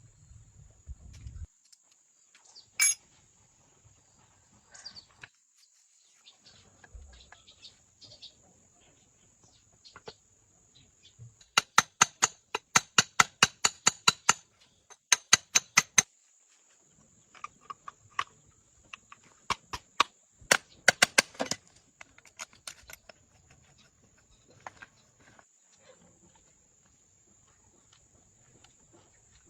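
Sharp, metallic-sounding knocks, mostly scattered. There is a fast run of about five a second lasting several seconds midway and a shorter burst later, over a faint steady high hiss.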